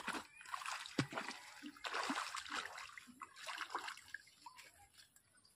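Water splashing and sloshing in irregular bursts, busiest in the first four seconds and fading toward the end.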